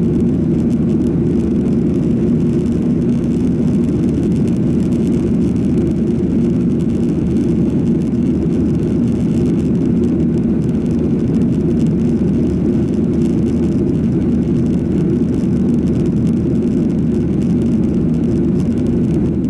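Steady, low engine and air noise of a Boeing 737-800 airliner heard inside the cabin, from its CFM56-7B turbofan engines and the airflow over the fuselage.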